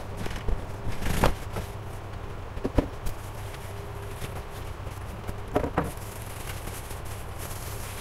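Cardboard carton and plastic bag rustling and crackling as a PC case is unpacked, with a few louder scrapes about a second in, near three seconds and around six seconds, over a steady low hum.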